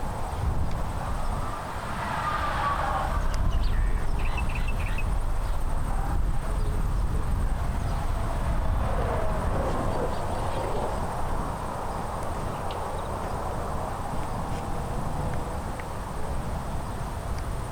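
Wind rumbling on the microphone outdoors, with two airy rushing swells that rise and fade, about two seconds in and again around nine to ten seconds.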